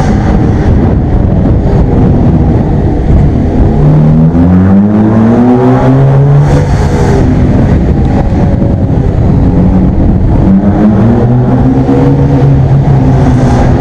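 Car engine accelerating inside a concrete underground parking garage. The pitch climbs twice, about four seconds in and again from about eight seconds, over a loud steady rumble.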